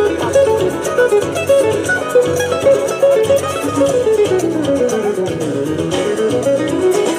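Music with a fast plucked-string melody of quick notes. The notes run down and then back up in the middle.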